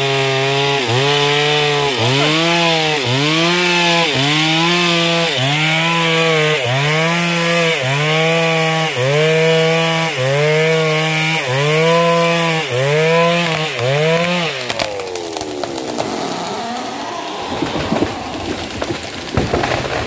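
Stihl chainsaw making the felling cut through a tree trunk, its engine note dipping under load and recovering about once a second. About fifteen seconds in the saw drops away and the tree comes down, with cracking and crashing through branches and undergrowth.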